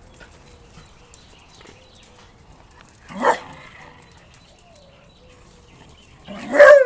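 Beagle barking: one short bark about three seconds in, then a louder, longer bark with a wavering pitch near the end.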